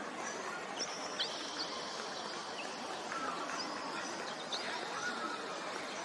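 Birds calling faintly over a steady hiss: thin, high held whistles and a few short, down-slurred chirps.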